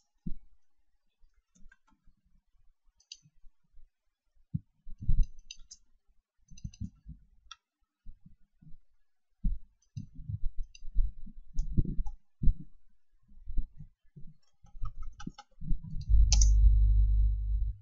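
Computer keyboard typing and mouse clicks: irregular short key clicks and knocks as code is entered. A steady low hum comes in near the end.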